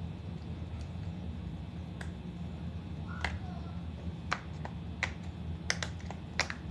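A string of irregular sharp clicks and taps from fidget toys being handled, most of them in the second half, over a steady low hum.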